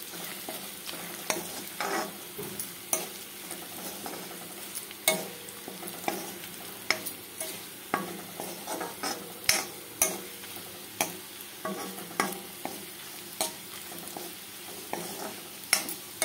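Flat spatula scraping and knocking against a kadhai while stirring onion, garlic and whole spices frying in hot mustard oil, over a steady sizzle. The knocks come about twice a second as the onions brown for the tadka.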